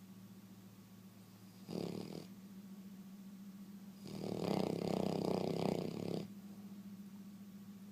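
A sleeping dog snoring: a short snore about two seconds in, then a longer, louder snore of about two seconds.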